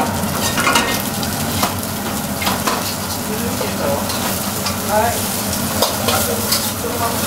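Diced meat sizzling in hot oil in a black wok, stirred with long wooden cooking chopsticks that knock and scrape against the pan now and then.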